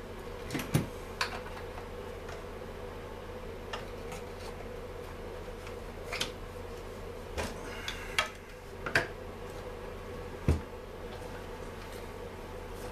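Scattered clicks and knocks of plastic and metal chainsaw parts being handled and fitted, a few of them sharper, over a steady low hum.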